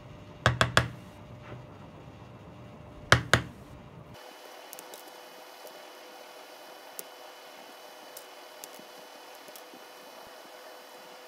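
Thin wooden puzzle pieces being worked free with a craft knife: three sharp clicks in quick succession about half a second in, two more about three seconds in, then only faint light ticks of the pieces being handled.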